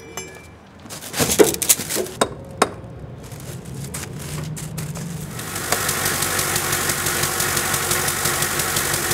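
A few sharp knocks, then the sasara snow-sweeper tram's rotating bamboo broom starts up: a rising hum, and from about halfway in a loud, steady, fast rattling as the broom spins at speed.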